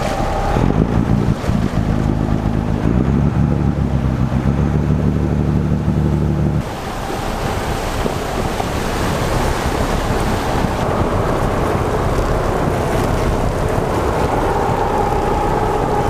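Heavy diesel engines of a Stryker armoured vehicle and bridge-erection boats running at a floating bridge. A strong low engine hum stops abruptly about six and a half seconds in, leaving a steady rushing noise of wind and water with engine noise beneath it.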